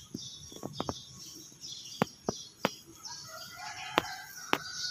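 Small birds chirping, with a rooster crowing from about three seconds in and several sharp clicks scattered through.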